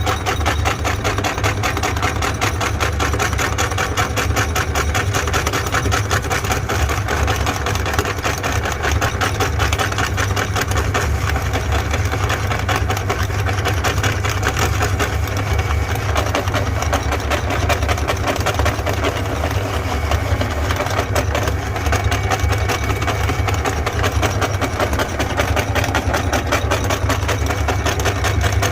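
Electric meat grinder running steadily, its motor giving a constant low hum with a fast, even buzz over it.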